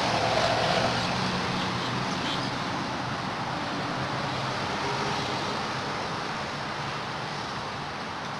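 Steady outdoor background noise: an even hiss with a faint low hum, a little louder in the first second.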